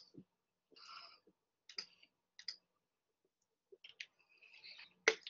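Faint, irregular clicks of a computer mouse, about half a dozen over a few seconds, with a couple of soft rustling sounds between them.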